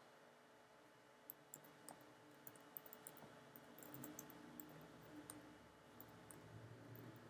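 Faint, irregular clicks of typing on a computer keyboard, mixed with mouse clicks, over near-silent room tone.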